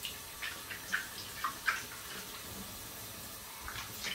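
Kitchen tap running into the sink as things are rinsed under it, with several short rubbing strokes of a sponge scrubbing the inside of a glass fish bowl, most of them in the first two seconds.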